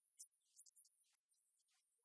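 Near silence, with faint scattered high-pitched ticks.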